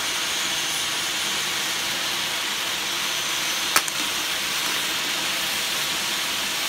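A firework hissing steadily as it burns and sprays sparks, with one sharp crack about halfway through. It is a spinning firework that has stuck and is burning in place instead of turning.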